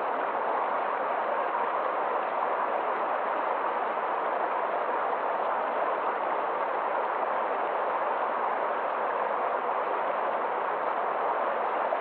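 Stream cascading over boulders: a steady rush of water with no change.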